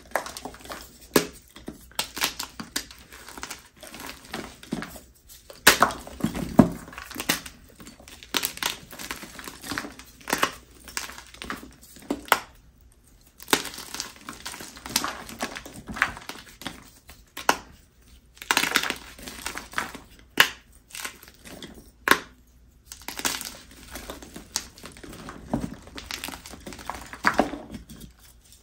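Hands crushing and crumbling reformed gym chalk blocks: a dense run of irregular dry crunches and powdery crumbles, with a couple of brief pauses.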